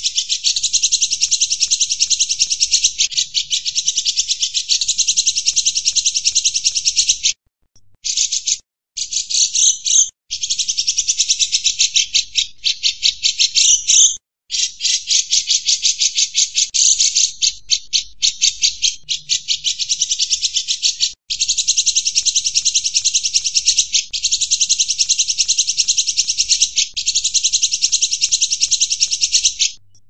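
Cucak jenggot bulbul singing: a fast, rhythmic chatter of high notes repeated many times a second, broken by a few short pauses.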